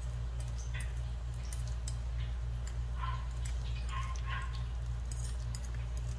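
Metal fork and spoon clicking and scraping as they spread open soft grilled eggplant on a plastic tray: scattered sharp clicks over a steady low hum, with a few short high squeaks about halfway through.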